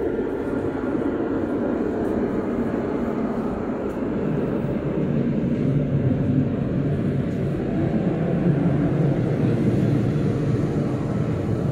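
A steady low rumbling noise, deepening about four seconds in.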